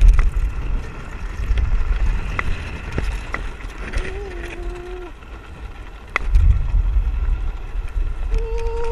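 Wind buffeting the microphone of a camera riding on a moving land yacht, a low rumble that is heaviest in the first second and again from about six seconds in, with a few sharp clicks. About four seconds in, and again near the end, a held tone steps down in pitch and lasts about a second.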